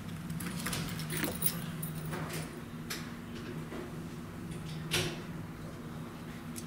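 A cabin key on a metal ring with a hard plastic tag jingling and clicking as it is picked up from a tray and handled, with one sharper click about five seconds in. A steady low hum runs underneath.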